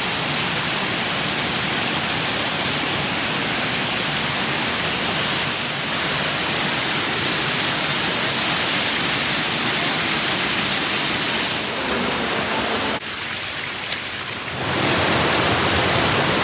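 Waterfall's rushing water: a loud, steady hiss that drops suddenly about thirteen seconds in and comes back a second or two later.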